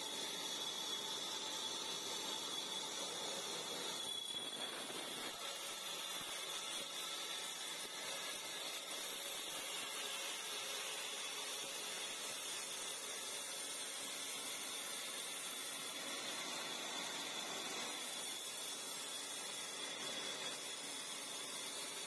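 Old vertical bandsaw running steadily, a hissing rush with a thin high whine from the blade. The whine fades about four seconds in and comes back in the second half.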